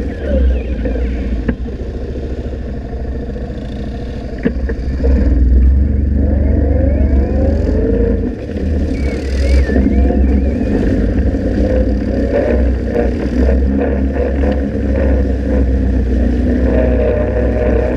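Yamaha Wolverine R-Spec side-by-side's engine running and revving on a dirt trail, its pitch rising and falling, heard from the front bumper with a heavy low rumble. Two sharp knocks come in the first few seconds.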